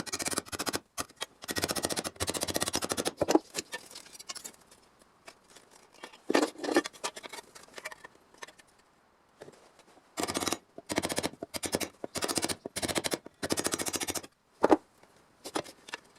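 A handheld power tool chattering on sheet steel in short bursts of rapid strokes, stopping and starting about a dozen times. There is a louder, lower burst about six seconds in.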